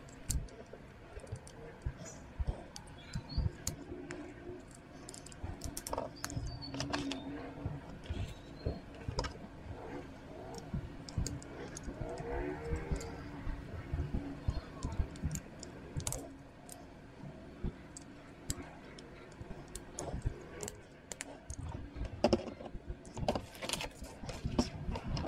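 Hard plastic parts of a Panther tank assembly-puzzle model clicking and tapping as they are handled and pressed together by hand. The clicks are light and irregular, with a louder cluster near the end.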